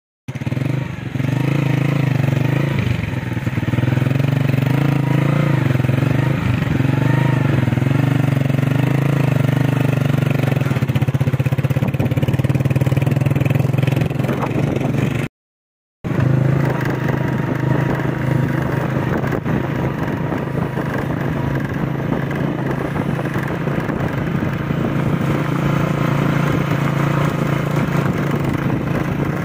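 Motorcycle engine running steadily with a constant low drone, as heard while riding it. For the first ten seconds or so a wavering higher-pitched sound rises and falls over it, and the sound cuts out briefly about halfway before the engine drone resumes.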